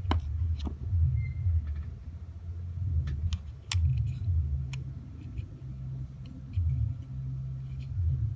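Low, uneven rumble that comes and goes, with about six sharp clicks scattered through the first five seconds.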